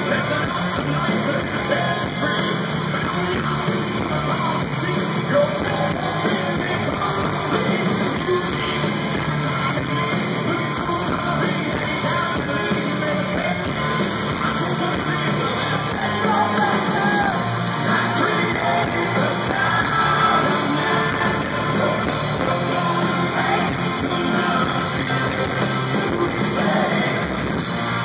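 Rock band playing live, loud and steady, with a singer over the band.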